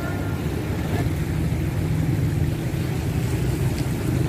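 A motorcycle engine running steadily at low revs.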